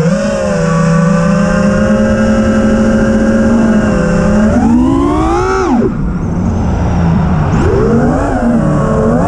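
6S FPV freestyle quadcopter's brushless motors and propellers whining, recorded onboard. They hold a steady pitch, rise sharply about halfway through as the throttle is punched, and drop off suddenly as it is cut. Near the end they surge up and down several times as the pilot works the throttle.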